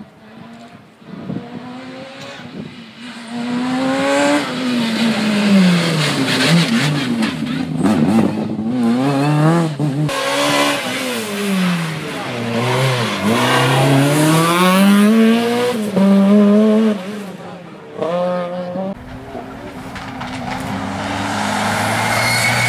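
A rally car driven hard through a stage as it approaches and passes. The engine revs up and drops sharply again and again with gear changes and lifts for corners, then fades after about 17 seconds.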